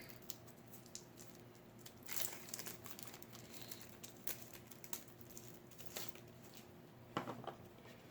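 Plastic wrapping being worked open by hand, crinkling and tearing faintly in fits and starts, with a louder rustle about two seconds in and a few more near the end.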